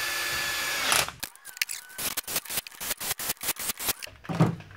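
Cordless drill-driver running for about a second as it snugs down a differential cover bolt, with a steady whine, then a quick run of sharp clicks, about five a second.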